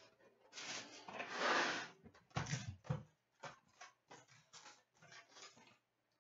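A small cardboard hockey card box being torn open by hand: a loud scraping rip of cardboard about a second in, then a string of short rustles and taps as the flaps are pulled apart.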